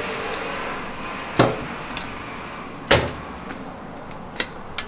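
Sharp knocks and clanks on a stainless steel tray as freshly fried chicken pieces are set down in it. There are two loud ones about a second and a half apart, then a few lighter taps near the end, over a steady hiss.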